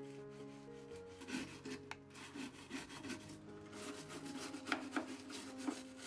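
Bristle brush scrubbing the plastic inside of a washing machine's detergent drawer compartment, rough back-and-forth scraping that starts about a second in, with a few sharp knocks against the plastic near the end.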